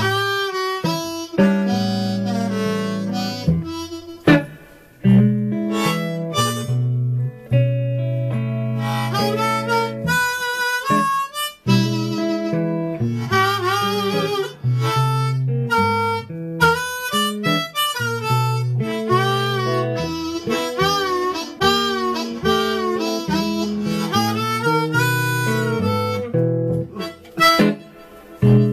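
Blues harmonica played into a microphone, a solo line of held and wavering notes with a few brief breaks, over hollow-body guitar accompaniment.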